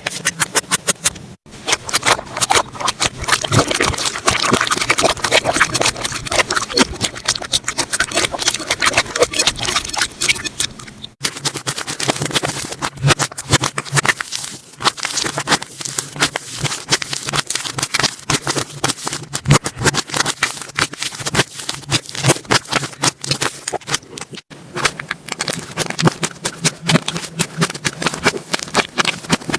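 Slime being squished and played with close to the microphone: dense, irregular crackling and popping clicks, broken by brief gaps about one and a half, eleven and twenty-four seconds in.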